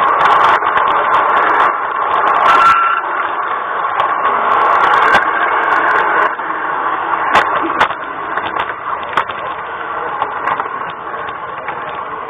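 LGB garden-scale model train running along its track, heard from a camera riding on the train: a steady mechanical running noise with scattered sharp clicks, gradually getting quieter toward the end.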